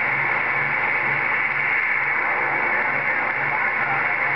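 CB radio receiver putting out a loud, steady whooshing hiss after unkeying, with a faint low pulsing about twice a second underneath. The operator takes it for a reflection of his own signal.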